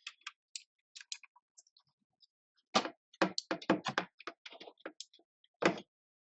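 Scattered sharp clicks and taps of hard plastic as a disassembled mechanical keyboard and its case are handled. The clicks come sparsely at first, then in a quick run through the middle, with one more near the end.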